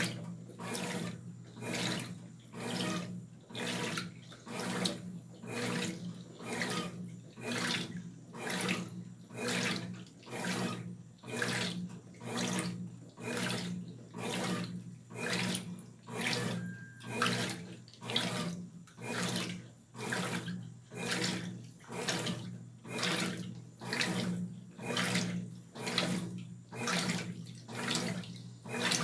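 Brastemp BWR12AB 12 kg washing machine agitating a load of clothes: water and laundry swish in regular surges about once a second over a steady motor hum.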